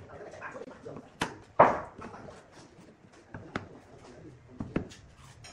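Segmented wooden blanks knocking on a wooden tabletop as they are handled and set down: a handful of sharp wood-on-wood knocks, the loudest about one and a half seconds in, with lighter taps later on.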